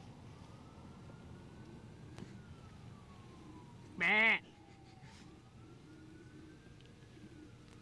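A faint siren wails slowly up and down. About four seconds in, one short, loud bleating call cuts through it.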